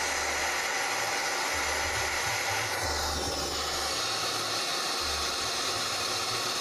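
Compressed-air-blown LPG torch, a modified air-conditioning brazing torch, hissing steadily at full blast, with the air turned up to run hotter while melting burnt phone flex cables in a crucible down to metal. A low hum comes and goes underneath.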